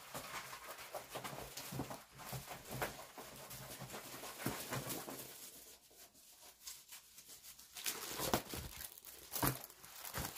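Clear plastic packaging of a diamond-painting canvas rustling and crinkling as it is handled, with scattered light taps. It is quieter for a couple of seconds midway and busier near the end.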